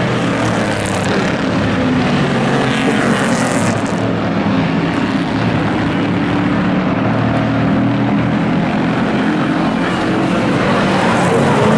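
Engines of hobby-class racing pickup trucks running hard in a tight pack on an oval track, loud and steady.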